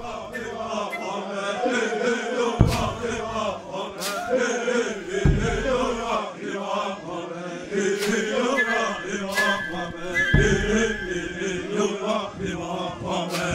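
A group of people chanting together in their own language, with several voices singing in unison, broken by a few sharp knocks.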